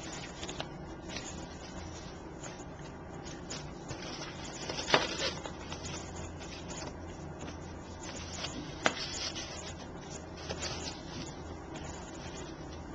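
Soft rustling and handling of ribbon and card, with two sharp taps about five and nine seconds in, over a low steady hum.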